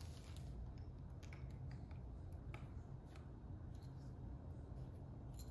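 Faint, irregular plastic clicks and taps as a keycap is fitted and pressed onto a mechanical keyboard switch, over a low steady hum.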